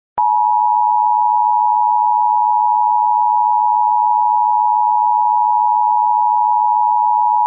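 Emergency Alert System attention signal: a loud, steady electronic tone just under 1 kHz that starts with a click a fraction of a second in and holds unbroken.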